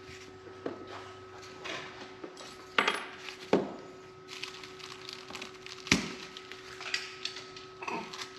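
Ears of field corn being shelled by hand: scattered sharp clicks and clinks as kernels are twisted off the cob and drop into a container, the loudest about three seconds and six seconds in. A faint steady hum runs underneath.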